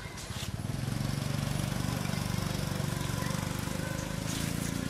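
A small engine running steadily with a rapid even pulse, getting louder about half a second in.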